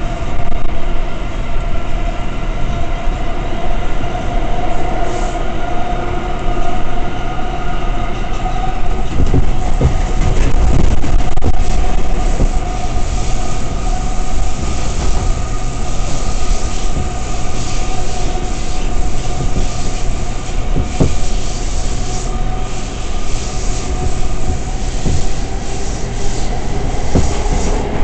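Interior of an R179 subway car running between stations: a continuous rumble of wheels on rail under a steady, slowly shifting whine, with occasional knocks from the track.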